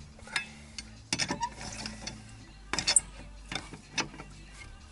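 Irregular metallic clinks and rattles over a low steady hum: the Lexus GS300's rear brake pads knocking loose in the rear wheel, a ringing, nagging knock.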